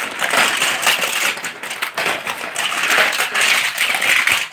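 Plastic toy cars clattering and knocking together as a hand rummages through a pile of them, a steady run of small clicks and rattles.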